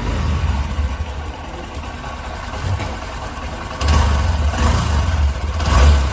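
Honda SP125 motorcycle's single-cylinder four-stroke engine running at idle, getting louder from about four seconds in as the revs rise. The video is about this engine's timing chain noise.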